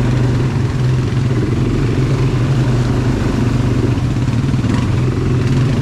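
ATV engine running at a steady pace, a low even drone under a rough mechanical rattle.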